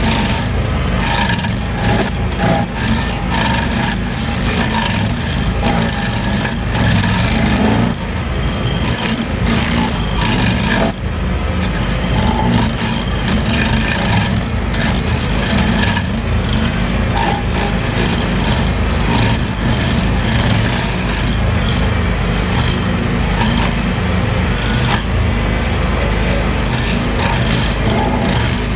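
Small gasoline engine of outdoor power equipment running steadily and loudly without a break.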